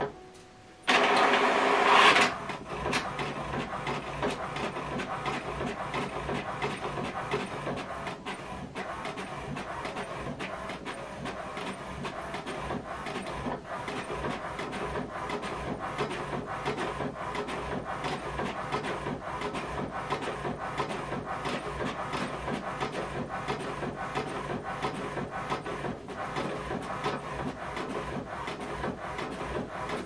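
HP DeskJet Plus 4120 inkjet printer printing a page. About a second in there is a loud start-up whir as it picks the sheet; then a steady run of rapid clicks and mechanical running as the printhead carriage shuttles and the page feeds out.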